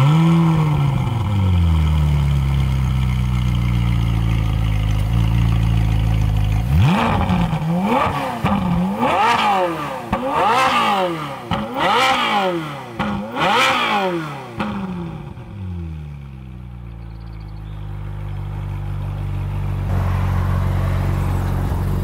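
Ferrari 458's 4.5-litre naturally aspirated V8 starting from cold with its exhaust valves held open: it catches with a rev flare, settles to a fast idle, then gets a series of quick throttle blips from about seven to fourteen seconds in before dropping back to idle.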